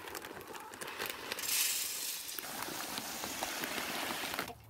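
Chicken feed pellets poured from a bag into a galvanized metal feeder: a steady rushing patter of pellets striking the metal, loudest about a second and a half in, cutting off abruptly just before the end.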